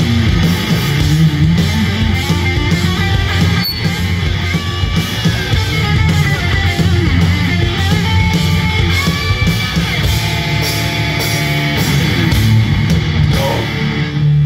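Live thrash metal band playing loudly: distorted electric guitars, bass guitar and drums with steady cymbal strokes.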